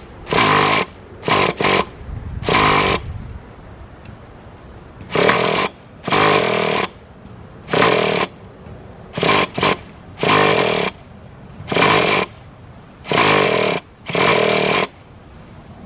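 Traxxas EZ-Start electric starter spinning the nitro engine of a Traxxas Nitro 4-Tec 3.3 in about a dozen short bursts, each around half a second long with uneven pauses between them. The engine does not catch, and the owner suspects a weak starter battery.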